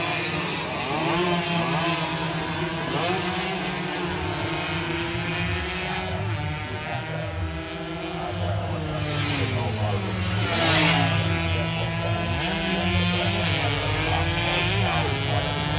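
Several 116cc underbone race motorcycles running at high revs, their engine notes overlapping and sliding up and down in pitch as they shift and go past. The loudest pass comes about eleven seconds in.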